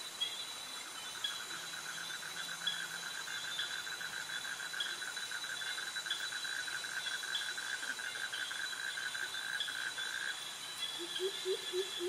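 Tropical forest insect chorus of cicadas and crickets: a steady high-pitched buzz, with a lower rapid pulsing trill that starts in the first second and stops about ten seconds in. A few short low calls come in near the end.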